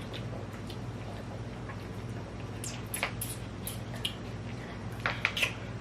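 Mouth sounds of someone eating instant noodles: short wet chewing clicks, a cluster about three seconds in and another near the end, over a steady low hum.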